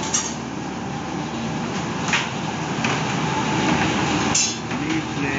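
Houseboat engine running steadily, a continuous mechanical drone, with two brief clicks about two seconds and four and a half seconds in.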